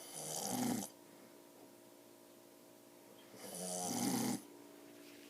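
An old man snoring heavily: two loud snores, each lasting about a second, the first at the very start and the second about three and a half seconds later.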